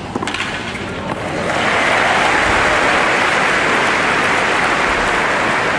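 A tennis ball struck by a racquet near the start, then a stadium crowd breaking into applause about a second and a half in, which holds steady as the point ends.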